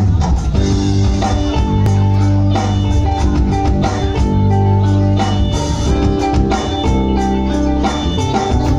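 Live band playing an instrumental passage of a pop-rock song: held keyboard chords with guitar and bass over a steady drum beat, loud through a PA system.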